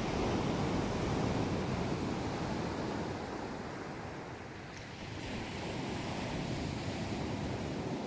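Sea surf washing on the shore, a steady rush that swells, eases off about halfway through and builds again, with some wind buffeting the microphone.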